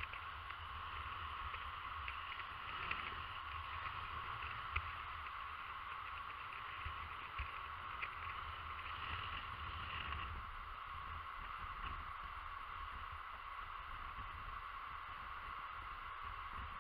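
Steady wind rumbling on the camera microphone over a constant hiss of small waves washing along the shore, with a few light clicks.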